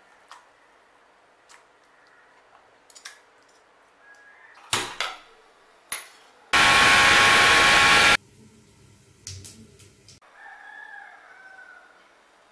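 Electric mixer grinder motor running in one loud, steady burst of about a second and a half, then cutting off abruptly, as the fried onion chutney mixture is pulsed in its steel jar. Just before, a few sharp metallic clinks of the steel jar and lid.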